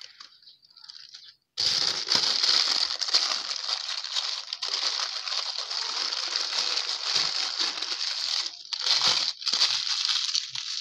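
Paper crinkling and rustling as a shawarma roll is folded and wrapped in a sheet of white paper, starting about a second and a half in, with a short break near the end before more crinkling.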